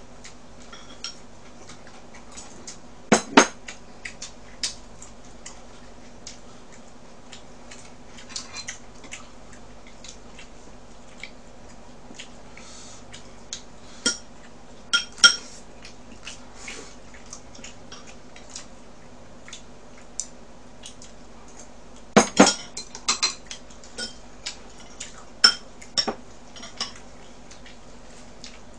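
Chopsticks and utensils clinking against dishes and a pan: scattered sharp clinks, the loudest coming in quick clusters a few times, over a faint steady hum.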